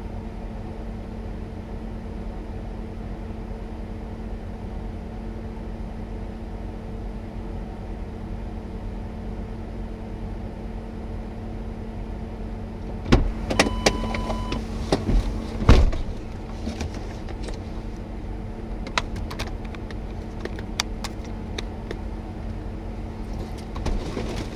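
Steady hum of an idling vehicle, heard from inside the cab. A few sharp knocks come about halfway through, with a short electronic beep among them, and scattered light clicks follow near the end.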